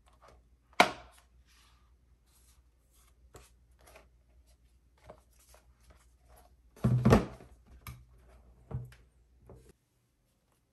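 Hands handling an Apple Magic Keyboard for iPad Pro, making irregular light clicks and taps. There is one sharp knock about a second in, a louder cluster of thuds about seven seconds in, and another knock near the end, after which the sound cuts off.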